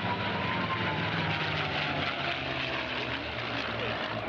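Formation of P-51 Mustangs flying past, their Merlin V-12 engines droning steadily, with a pitch that falls slowly as they pass.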